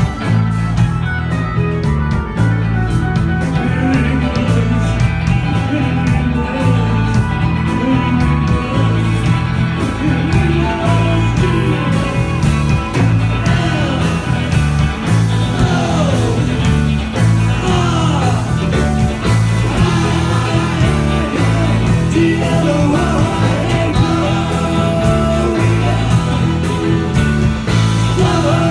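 A live band playing guitar-led rock music over a steady bass line and drum beat.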